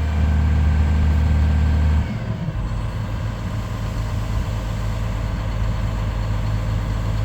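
Caterpillar 336D2 excavator's diesel engine running with a loud steady drone. About two seconds in the drone drops away and the engine settles to a quieter, steady running, as when it comes down to idle.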